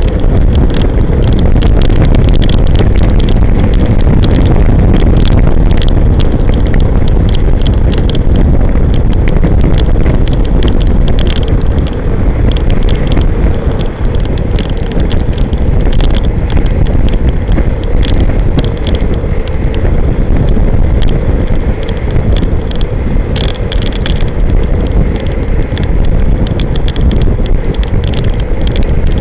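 Kite buggy moving over beach sand, its run dominated by a loud, steady wind roar on the microphone, with frequent small clicks and rattles from the buggy.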